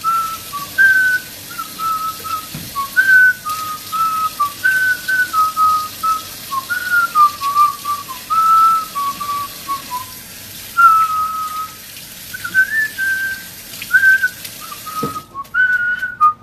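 A person whistling a tune, a string of held notes stepping up and down, over a steady hiss of running tap water that cuts off near the end.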